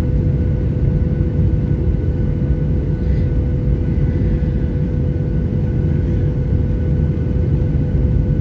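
Jet airliner cabin noise during the final approach to landing: a steady, dense rumble of engines and airflow, with a steady hum over it.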